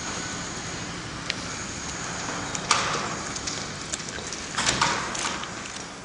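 Hands squeezing and wringing a wet cloth in a plastic bucket of water, with a few sharp wet splashes and squelches about two and a half seconds in and again near the end.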